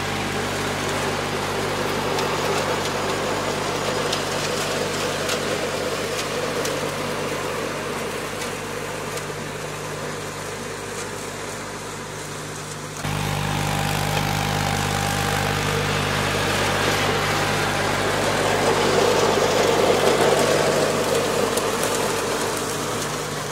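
Garden tractor engine running steadily while its rear PTO drives a Mott flail mower through brush and weeds, with a swelling rush as the flails chew through the growth, strongest near the end. The engine note changes abruptly about halfway through.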